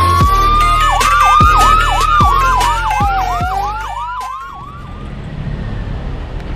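Siren sound effect over an electronic music beat: a slow rising-and-falling wail with a fast yelping siren layered over it, and falling drum hits every ~0.75 s. Both fade out about five seconds in, leaving a steady rushing noise.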